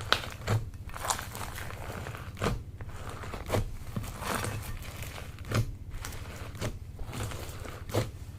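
Slime being squished and worked, with a crinkly crackle throughout and sharp pops about every second or so.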